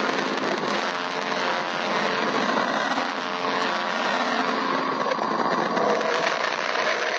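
A 'sound of a planet' recording playing back: a steady rushing drone with faint held tones running through it.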